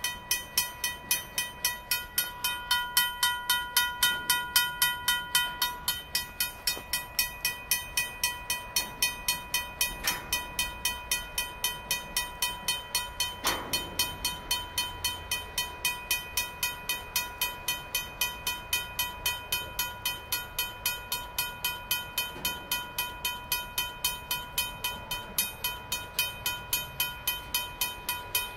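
RACO mechanical railroad-crossing bell ringing steadily, rapid evenly spaced strokes with a clear metallic ring, while the crossing is blocked by a stopped freight train.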